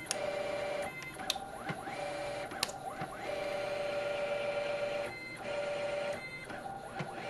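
Keling 381 oz-in stepper motors on a CNC-converted 7x10 mini lathe driving the carriage and cross slide through a program: a steady multi-tone whine that breaks off and restarts several times, with pitch glides as the motors speed up and slow down. A few sharp clicks are heard along the way.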